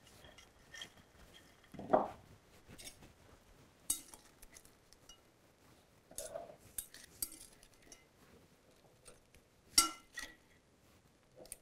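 Metal tongs clinking and scraping against a ceramic bowl and wire fry baskets as waffle fries are picked up and placed, in scattered short clinks, the loudest near the end. A duller thump about two seconds in, as the bowl is set down on the wooden board.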